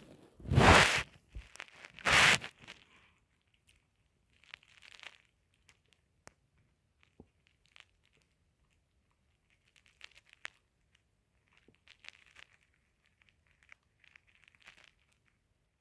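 Two loud bursts of rustling, scraping noise, about half a second and two seconds in, followed by faint scattered rustles and small clicks.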